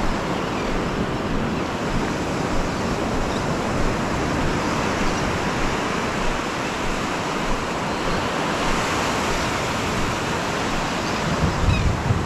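Ocean surf breaking and washing up a sandy beach: a steady rushing wash. Wind gusts rumble on the microphone near the end.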